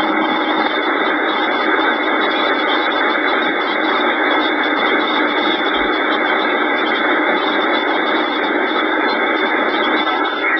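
CB radio receiver static: a steady, loud rush of hiss through the radio's narrow-band speaker on an open channel between transmissions.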